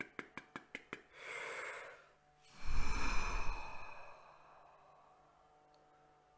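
A person breathing out: a short soft breath, then a long, forceful exhale blown out with a faint whistle in it, fading away. Before it, for about the first second, comes a quick even run of clicks, about six a second.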